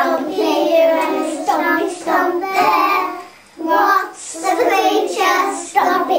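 Young children singing a song in phrases, with a short break about halfway through.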